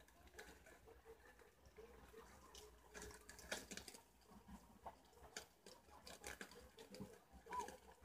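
Faint, irregular clicking and rustling of preás (wild cavies) nibbling greens and shuffling among the leaves, with a short faint chirp near the end.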